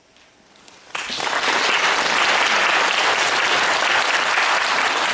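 Audience applauding. The clapping breaks out suddenly about a second in, after a brief quiet, and goes on steadily.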